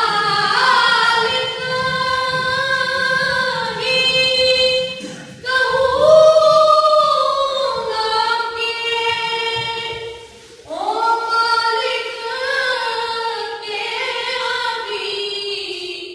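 A boy's solo voice singing a naat (Urdu devotional praise poem) unaccompanied, in a high voice with long held, sliding notes. Three phrases, with short breaks about five and ten and a half seconds in.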